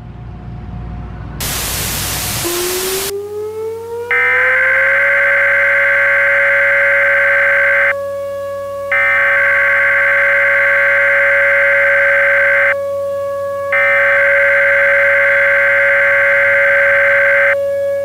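Mock Emergency Alert System opening: a low rumble builds, a loud burst of static hits about a second and a half in, and a tone glides upward into a steady drone. Over the drone, three long bursts of screeching SAME header data tones sound, each about four seconds long, with short gaps between them.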